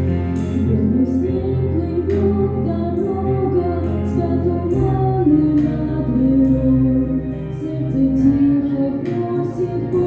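A song: a solo voice sings a melody over sustained instrumental accompaniment.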